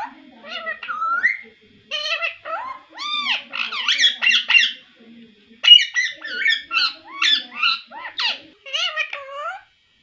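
Indian ringneck parakeet chattering in quick, high-pitched speech-like phrases, the talking-parrot babble, with a few arching whistled notes about three seconds in and brief pauses around two and five seconds.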